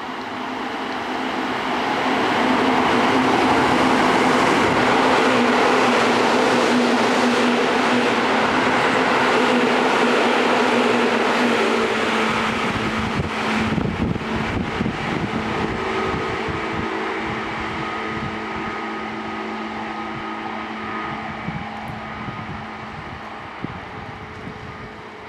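A Seibu Railway electric commuter train runs through the station at speed. The sound builds as it approaches and holds loud for several seconds with a steady whine. A run of wheel clatter comes about halfway through as the rear cars pass, and then it fades as the train recedes.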